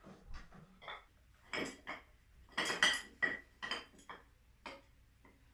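Loose metal parts and hand tools clinking and clattering, about ten short irregular knocks, some ringing briefly, while an engine is being taken apart.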